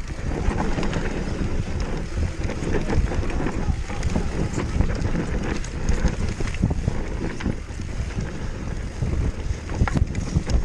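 Wind rushing over the microphone on a fast downhill mountain-bike descent, with frequent sharp knocks and rattles from the bike over rough ground.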